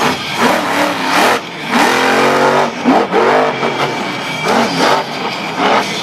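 Monster truck's supercharged V8 engine revving hard up and down over and over, held at high revs for about a second around two seconds in.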